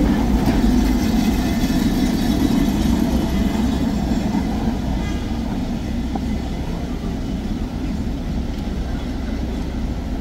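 Tram running on its rails: a steady low rumble of wheels and running gear that slowly grows quieter.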